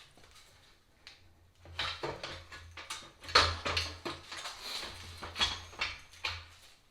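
Metal parts and tools clinking and knocking as they are handled, in a quick irregular run of sharp taps over a faint low hum.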